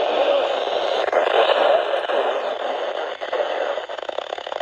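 Weather radio receiver hiss: steady static from the NOAA Weather Radio broadcast on KIH63, with fast crackle near the end.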